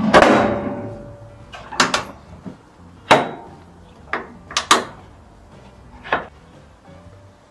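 Pit Boss Champion steel barrel smoker being handled. It starts with one loud metal clang that rings on briefly. Then come about half a dozen sharp metallic clicks and knocks over the next five seconds as the small side damper on the barrel is worked by hand, setting the airflow to hold the smoker's temperature.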